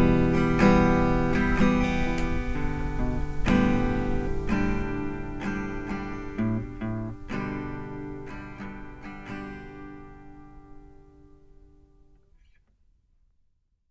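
Acoustic guitar being strummed, a few chords in the first seconds, then a handful of single plucked notes around the middle. The last notes ring on and die away to silence near the end.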